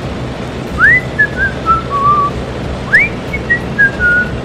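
A person whistling two short phrases, each a quick upward slide followed by a few stepped notes falling in pitch, the second starting higher than the first.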